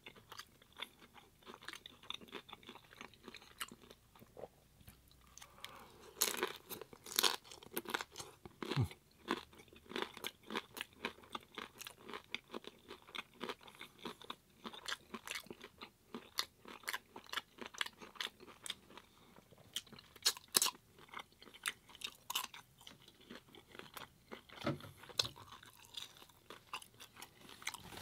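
A person chewing hard corn taco shells close to the microphone: a dense, irregular run of crisp crunches, loudest between about six and nine seconds in and again around twenty seconds.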